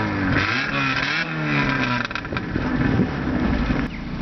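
Daewoo Nexia engine revved twice in quick blips, its pitch rising and falling. A hissing whistle from a Turbo Whistler exhaust whistle swells with each rev. About two seconds in it drops back to a lower, steadier run near idle.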